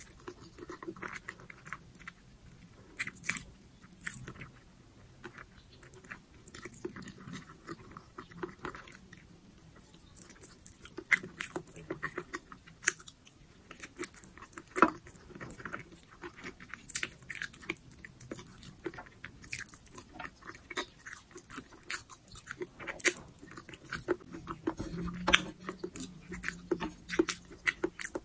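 Close-miked chewing and biting of braised pork humba eaten off the bone: irregular sharp clicks and smacks of the mouth, several each second.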